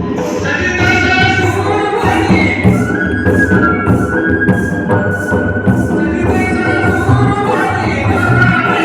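A folk song sung with percussion accompaniment, the singing holding one long note in the middle. An even percussion beat runs underneath.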